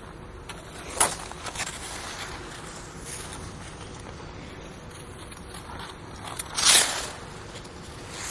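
Ice skate blades on an indoor rink: a steady glide hiss, with a short sharp scrape about a second in and a longer, louder blade scrape late on.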